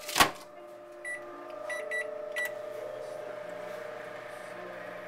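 Microwave oven door shut with a clunk, then four keypad beeps, and the microwave starts running with a steady hum as it heats chocolate to melt it.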